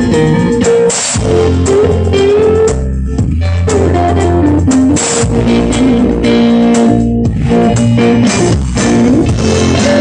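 Loud instrumental remix music with guitar and a steady bass line, no singing.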